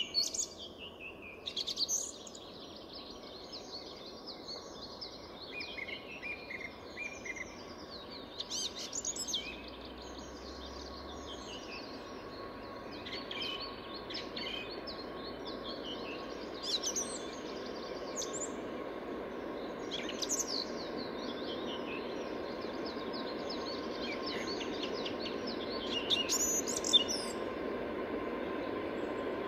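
Song thrush singing: a string of short, varied phrases with brief pauses between them, over steady background noise.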